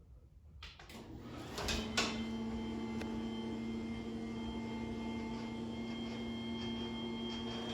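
Belt-drive garage door opener starting with a click and then running with a steady motor hum, its trolley disengaged from the door so the motor runs unloaded.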